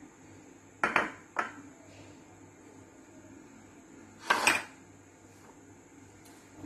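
Dishes handled on a kitchen counter. About a second in, a glass dish is set down with a clack, followed by a lighter knock. Around four seconds in comes a longer clatter as the serving tray holding a raw leg of mutton is moved.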